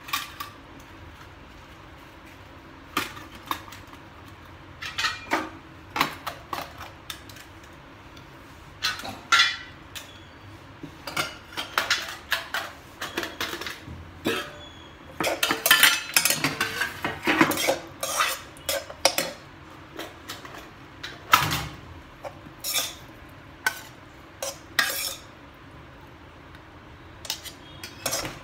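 Stainless steel kitchen utensils and dishes clinking and clattering as they are picked up and set down on the counter, in scattered knocks that come thickest about halfway through.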